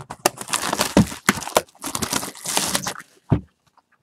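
Plastic wrapping crinkling and tearing as a sealed box of trading cards is opened, a run of irregular crackles.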